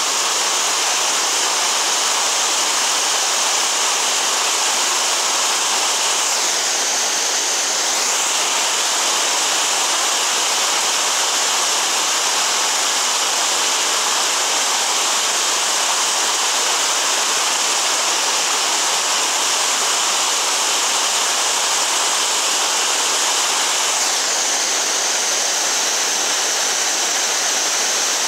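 Fast mountain creek rushing and splashing through small cascades between boulders: a loud, steady rush of whitewater.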